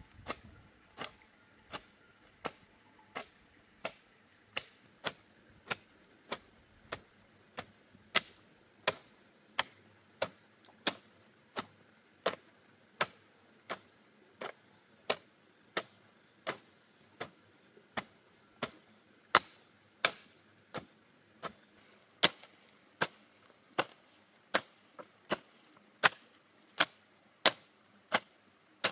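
Hand hoe blade striking soil over and over at a steady pace of about three chops every two seconds as ground is broken up. Each chop is a short, sharp thud.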